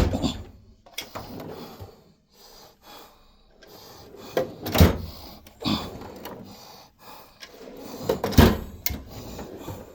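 Metal tool chest drawers sliding and shutting with loud clunks: one at the start, one about five seconds in and one about eight and a half seconds in, with lighter rattling of tools in between.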